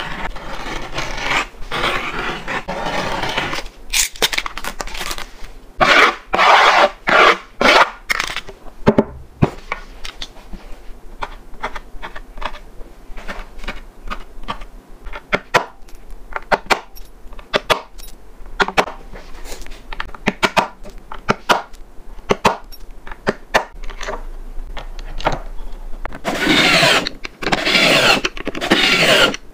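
Skateboard grip tape scraped and cut along the deck's edge in rough strokes, then scattered clicks and taps as bolt holes are poked through the tape. Near the end a power drill runs, driving the nuts onto the truck's mounting bolts.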